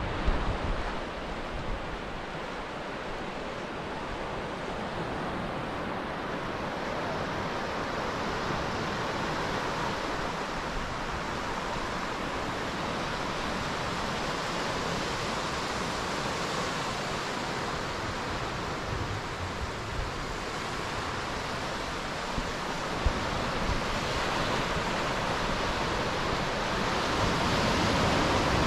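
Steady hiss of surf as small waves break and wash up a sandy beach, with wind buffeting the microphone in the low end.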